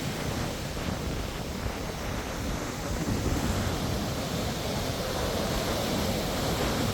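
Sea surf washing on the shore, with wind buffeting the microphone.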